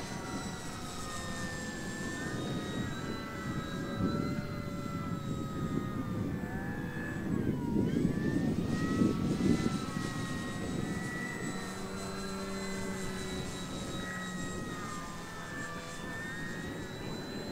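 Flex Innovations RV8 radio-control plane's electric motor and propeller whining in flight. The pitch slides up and down with throttle and passes, dips sharply about eight seconds in, and the sound is loudest with a rushing noise for the next second or so.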